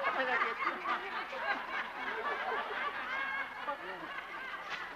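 Audience laughter: many voices chuckling and tittering together, easing off a little towards the end.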